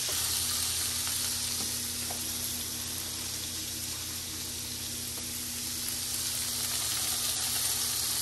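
Pork patties frying in a cast iron skillet: a steady sizzle.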